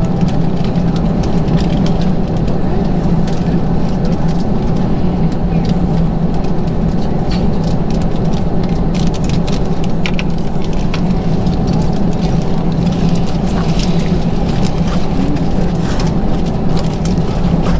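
Airbus A321 passenger cabin noise on the ground: a steady low drone from the jet engines and air conditioning, with scattered light clicks and rattles, typical of the airliner taxiing before takeoff.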